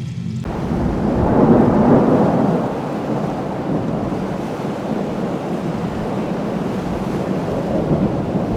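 Designed dark ambience: a dense, rumbling wash of noise that starts suddenly, swells over the first two seconds, then holds steady.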